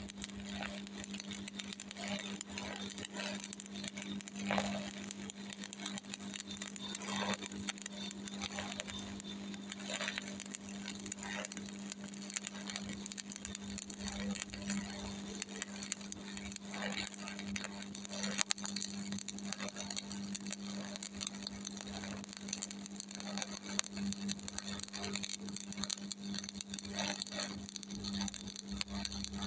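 Stick (shielded metal arc) welding with an E6013 3.2 mm electrode from a Miller Thunderbolt 225: the arc crackles and spits irregularly over a steady hum as a vertical-up fillet pass is run.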